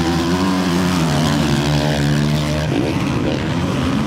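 Motocross bike engines running at high revs, their pitch holding steady and then changing and sliding about two-thirds of the way through as the riders go over a jump.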